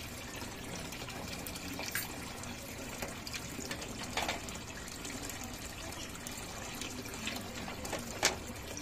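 Water trickling and bubbling steadily in a turtle tank, with a few brief sharp drips or ticks.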